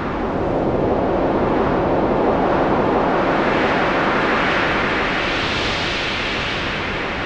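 A long rushing whoosh of noise that swells up and slowly eases off, with no tune or voice in it: the sound effect of an animated logo reveal.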